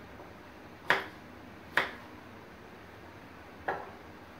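Kitchen knife cutting garlic cloves, the blade striking a wooden cutting board in three sharp knocks, the last one after a longer pause.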